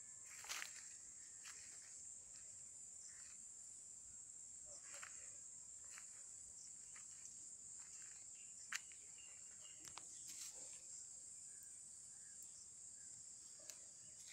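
Faint, steady high-pitched insect chorus across open farmland, with scattered soft clicks and rustles and one sharper click about nine seconds in.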